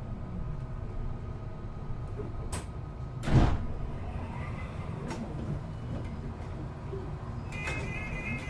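Inside a moving city bus: a steady low rumble from the engine and the road. There is a click and then a sharper knock about three seconds in, and a high, steady tone begins near the end.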